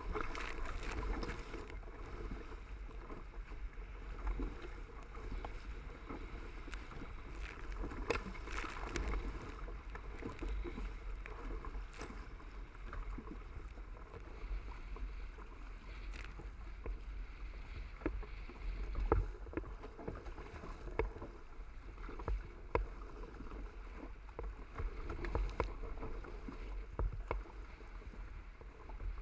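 Water rushing and splashing along a Hobie Cat's hull as the catamaran sails upwind through chop, with wind rumbling on the microphone and scattered sharp splashes of spray.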